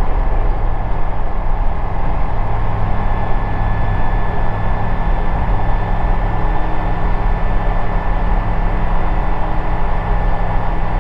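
Ikarus C42B microlight's engine and propeller running steadily at full power on the takeoff and climb-out, with a thin steady high whine above the drone.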